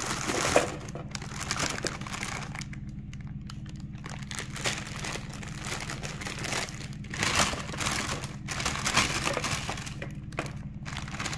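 Plastic produce bag crinkling in several short bursts as Brussels sprouts are shaken out of it, the sprouts dropping and rolling onto a metal sheet pan.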